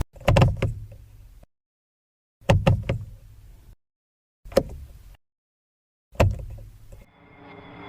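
Four separate bouts of knocking, each two or three quick knocks that ring out briefly, with dead silence between them. Near the end a swell of music begins to rise.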